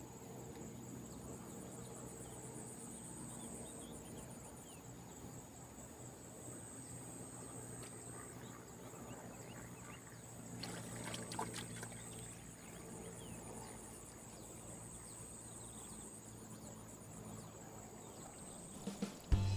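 Insects calling: a steady high-pitched buzz with fast pulsed trills over a faint low hum. A few soft clicks and rustles come about ten to twelve seconds in.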